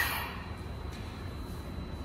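Stationary E131-1000 series electric train at the platform giving a low steady hum with a faint high tone. The noise of its arrival fades away in the first half-second.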